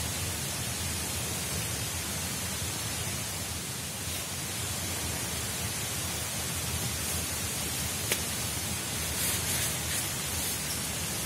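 Steady hiss of falling water, with a few sharp clicks and crackles about eight to ten seconds in.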